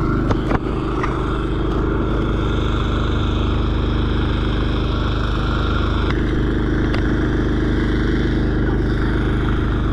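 A motor running steadily, a constant low drone, with a few short knocks near the start and twice more later on.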